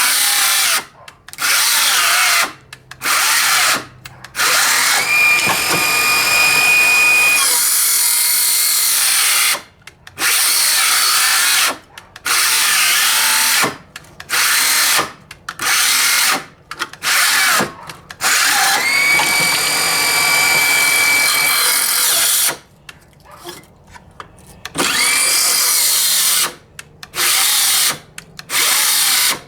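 DeWalt 12V XTREME brushless circular saw cutting through 2x4 lumber in about a dozen short bursts, stopping and restarting every second or two, with a steady high motor whine in the longer runs. It is being run on a knockoff 4Ah battery that is nearly flat and gives out soon after.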